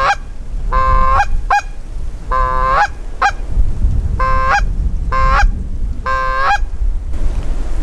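A hand-held goose call blown in a series of Canada goose honks. There are about seven, each a short held note that breaks sharply upward, with a quick cluck after some of them, and the calling stops about seven seconds in. Wind rumbles on the microphone throughout.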